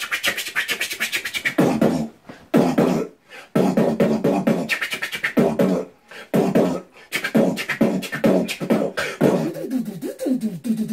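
Two beatboxers trading beatbox phrases back and forth as a 'conversation' in place of words: rapid mouth clicks and snares mixed with hummed, pitch-bending vocal tones, with short pauses between phrases.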